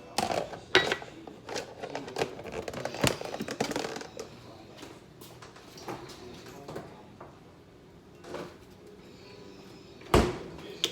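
Knocks and clatter of items being handled and set down in a kitchen: a quick run of knocks in the first few seconds, quieter handling after that, and one louder knock near the end.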